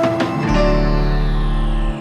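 Background music: a held chord with a low bass note, and a high sweep falling in pitch from about half a second in.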